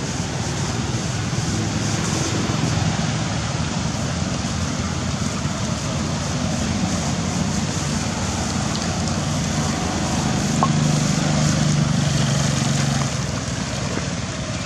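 Steady heavy rain, with a low hum that swells about ten seconds in and fades before the end.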